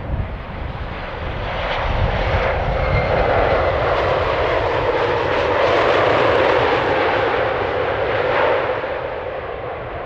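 Boeing 737-800 airliner rolling out after touchdown, its jet engines swelling to a loud roar a few seconds in and easing off near the end, as on reverse thrust during the landing roll. A low rumble of wind on the microphone runs underneath.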